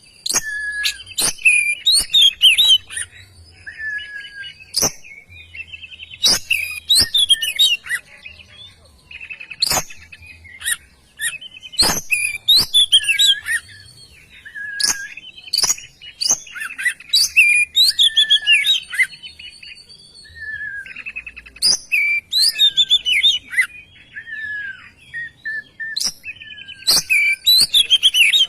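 Oriental magpie-robin (kacer) singing loudly and continuously: a varied string of whistled and trilled phrases broken by sharp clicks, with short pauses between bursts.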